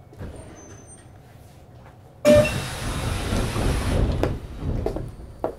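Sliding doors of a Kintetsu 3220 series passenger car working at a station stop, heard from inside the car. A sudden loud rush of noise starts a little past two seconds in and eases off over the next few seconds, with a few clicks and knocks.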